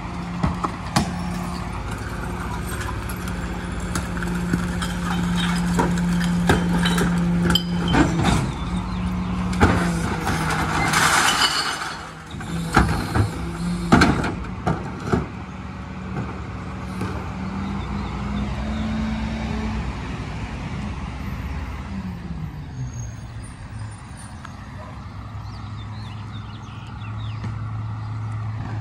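Rear-loading recycling truck's diesel engine running at raised speed while plastic carts are tipped into the hopper, with repeated knocks and bangs from the carts and a loud hiss about eleven seconds in. The engine falls to a lower idle about three-quarters of the way through.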